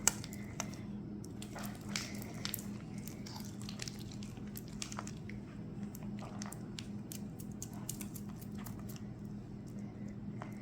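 Glue-and-borax slime being stirred and folded with a spatula in a mixing bowl, making irregular small clicks and squelches as the activator is worked in. A faint steady hum runs underneath.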